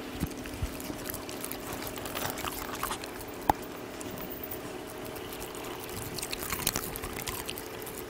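Young Jindo dogs eating boiled pork from a hand: wet smacking and chewing in short clusters, over a steady low hum, with one sharp click about halfway through.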